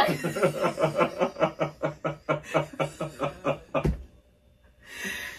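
A long run of laughter, pulsing evenly at about five 'ha's a second. It stops about four seconds in with a low thump.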